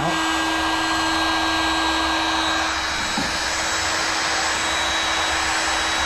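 Electric heat gun running steadily, a constant rush of air over a steady motor hum. It is heating freshly poured epoxy resin to thin the white pigment layer and make the alcohol in it break the resin into cells.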